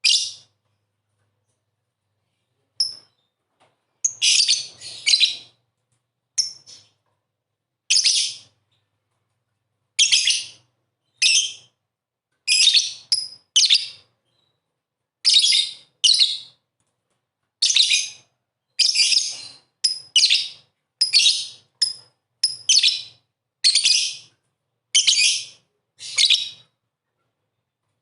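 Lovebird giving short, shrill chirps, one every second or so at an uneven pace, sometimes two or three in quick succession, with silence between them.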